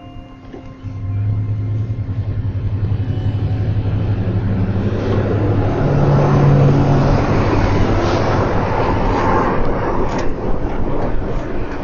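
Car driving: the engine note comes in sharply about a second in and steps up in pitch around six seconds, while road noise builds as the car gathers speed.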